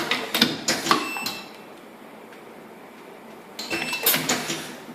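Pneumatic single-colour pad printing machine cycling: a quick run of mechanical clacks in the first second or so, a pause of about two seconds, then another run of clacks near the end.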